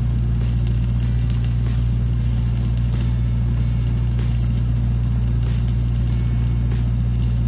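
Steady drone of an engine-driven welding machine running at constant speed, with a light crackle over it from a flux-cored welding arc.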